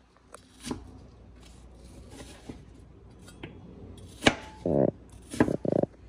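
Kitchen knife cutting apple slices on a bamboo cutting board: a few slow, separate cuts, each ending in a knock of the blade on the wood. The loudest knocks come about four seconds in and again near the end.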